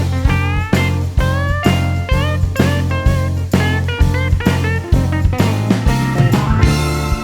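Background music: a blues-style track with bending electric guitar over a steady bass and drum beat.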